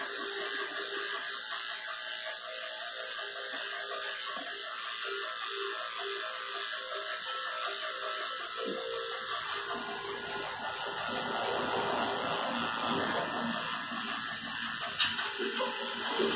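Corded electric dog-grooming clipper running steadily as it is drawn through a cocker spaniel's coat, with a few light knocks near the end.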